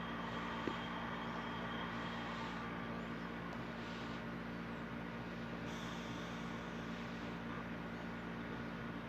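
Steady low mechanical hum, with a single faint click about a second in.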